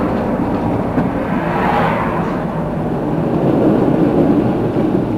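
Steady engine and road rumble of a moving vehicle heard from inside it while driving, with a faint steady hum.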